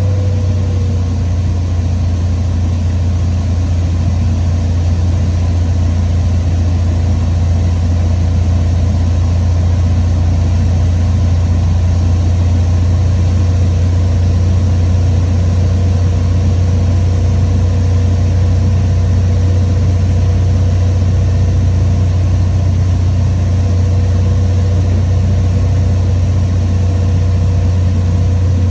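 Cessna 182's piston engine and propeller running in flight, a steady low drone heard inside the cockpit.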